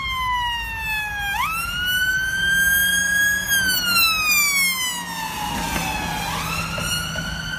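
Ambulance siren wailing as the ambulance approaches and drives past, its pitch sweeping slowly down and up in long glides, with engine and road rumble underneath. Its pitch is shifted by the Doppler effect as the vehicle comes toward the listener and then moves away.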